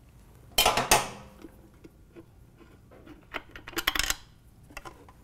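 Metal clinks as the stock Harley-Davidson air cleaner's chrome outer cover and its bolt are worked loose by hand and lifted off. There is one sharp, ringing clink about half a second in, then a run of lighter clicks near the end.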